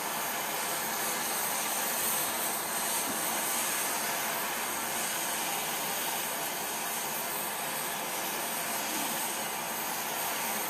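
Small propane pencil torch burning with a steady hiss, its flame held on a U-joint clamped in a vise to heat the stuck joint loose.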